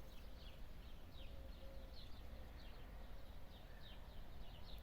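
Birds chirping faintly in the background: many short, falling chirps a few times a second, over a steady low rumble.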